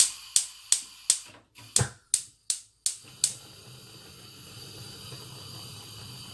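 Gas hob's spark igniter clicking about three times a second as the large burner is turned fully on. The gas catches a little over three seconds in, and the clicking gives way to the steady hiss of the burner flame.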